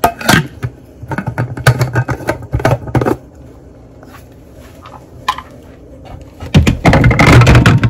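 Kitchen handling noise: a run of knocks and clicks as a glass jar and measuring cup are handled, a quiet pause, then loud rubbing and bumping right against the microphone near the end.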